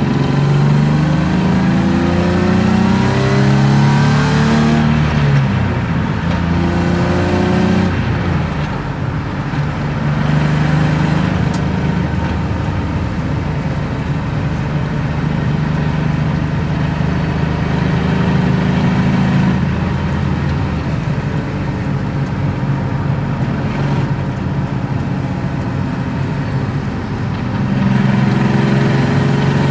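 BMW E36 325i's M50B25 inline-six, breathing through aftermarket headers and exhaust, pulling hard up through a gear, shifting up about five seconds in and pulling again. It then holds a steady cruise, goes quieter and rougher as if off the throttle, and climbs again near the end. Heard from inside the cabin.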